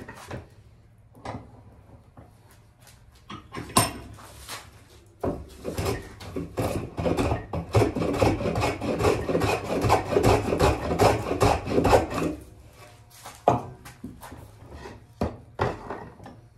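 A hand tool worked back and forth against a piece of wood clamped in a bench vise: a few separate knocks at first, then about seven seconds of quick, rasping strokes, then scattered knocks again.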